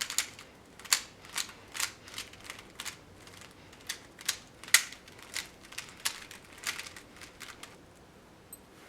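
Rubik's Cube layers being twisted fast by hand: a quick, irregular run of plastic clicks and clacks that stops about three quarters of the way through.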